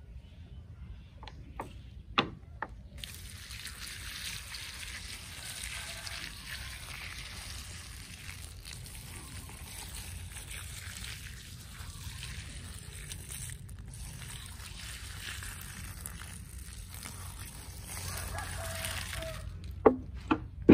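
Water splashing steadily onto soil and leaf litter, starting abruptly about three seconds in and stopping near the end. A few sharp knocks come shortly before it starts and just after it stops.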